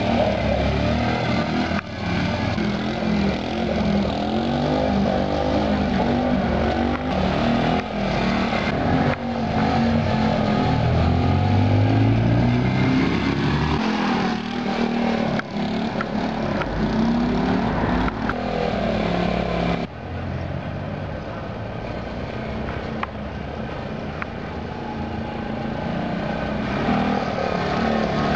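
Honda Z50 minibike's small four-stroke single-cylinder engine revving up and down as it is ridden. Its pitch climbs steadily for a few seconds near the middle, then drops, and the sound changes abruptly about two-thirds of the way through.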